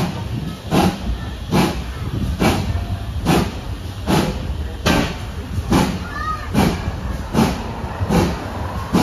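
Steam locomotive exhaust beats heard from a coach behind it: an even chuff a little over once a second over the running rumble of the train.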